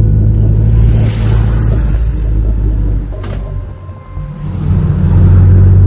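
Vehicle engine running under way on the road, steady and heavy in the low end. It drops back for a moment about four seconds in, then builds again. There is a single sharp click a little after three seconds in.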